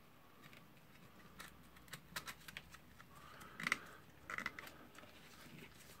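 Faint handling sounds of a plastic dust cover being pressed into an angle grinder's motor housing by hand: a few light clicks, then two short squeaky rubs as the parts are worked into place.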